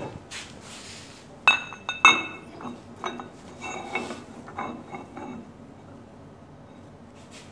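Steel parts of a testing machine's shear fixture and specimen clinking as they are fitted together by hand. There are two sharp ringing metal knocks about one and a half and two seconds in, then a series of lighter clinks that stop about five seconds in.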